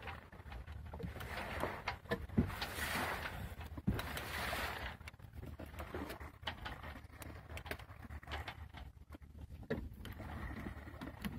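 Water washing and splashing along a sailboat's hull, swelling for a couple of seconds about three seconds in and again near the end, over a low steady rumble with scattered light knocks.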